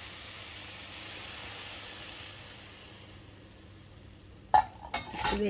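Sugar syrup poured onto hot şekerpare cookies fresh from the oven, sizzling with a steady hiss that dies away after about three seconds. Near the end there is a sharp knock, then a voice.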